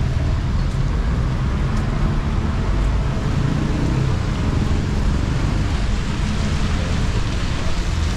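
Steady city street noise: an even rumble of road traffic.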